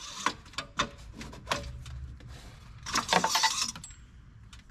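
Long metal engine-oil dipstick being pulled and handled to check the oil level: scraping rasps of metal sliding in the dipstick tube, one at the start and one about three seconds in, among a run of clicks and knocks.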